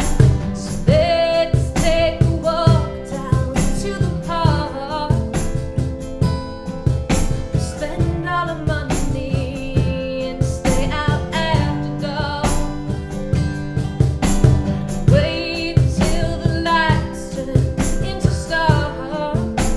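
Live acoustic band music: a woman singing over a strummed acoustic guitar, with a second guitar, a keyboard and a steady hand-played cajon beat. Her voice comes in phrases, starting about a second in, again around eight seconds and again past fifteen seconds.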